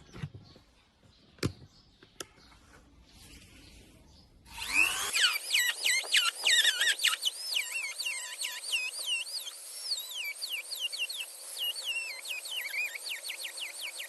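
A few faint clicks and taps, then about four and a half seconds in a small electric rotary grinder starts cutting into the rusted steel outer race of a front-loader washing machine's drum bearing. It makes a harsh grinding noise with squeals that rise and fall in pitch.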